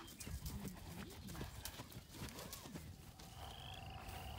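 Horses' hooves thudding irregularly as they trot over grassy pasture, with a few low snorts or nickers among the footfalls. About three seconds in, a steady high trilling starts up.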